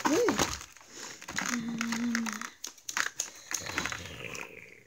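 Plastic doll packaging crinkling and crackling as it is handled and pulled about, with a brief steady hum about halfway through.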